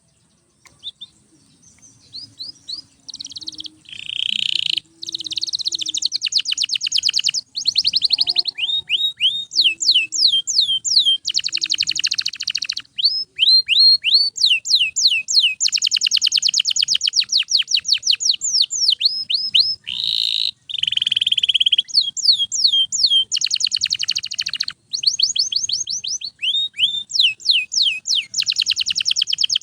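Canary singing a long, loud song, starting faint and loud from about four seconds in. Phrases switch between very fast trills of repeated notes and slower series of high, falling whistled notes.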